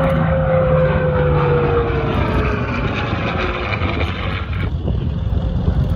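Piston engine of a propeller-driven WWII fighter plane passing by low. Its drone slides down in pitch as it goes past, and the higher part of the sound drops away suddenly about three-quarters of the way in.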